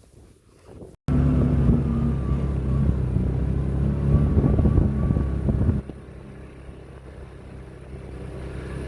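A motor vehicle's engine running steadily close by. It starts abruptly about a second in and drops suddenly to a quieter steady run near six seconds in.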